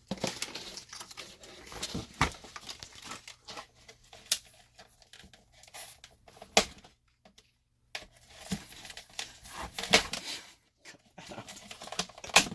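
Cardboard and plastic packaging being handled, rustling and crinkling, with scattered sharp clicks and snaps while zip ties holding the RC car in its box are worked at. There is a brief pause about seven seconds in.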